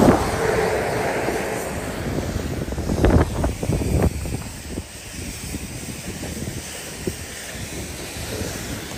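Nissan Patrol driving off-road: a steady rushing noise, loudest at the start and easing off, with a few sharp knocks about three to four seconds in.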